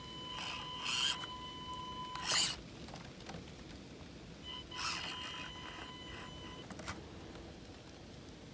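Axial SCX24 micro RC crawler's small electric drive motor whining steadily at a fixed pitch in two runs of about two seconds each, with a few clicks and scrapes from the truck working over wooden boards.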